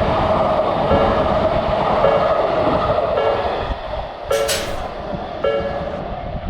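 A Japanese level-crossing warning bell rings over and over, about once a second, over the noise of a passing train. The train noise fades after about four seconds, and a short hiss bursts out about four seconds in.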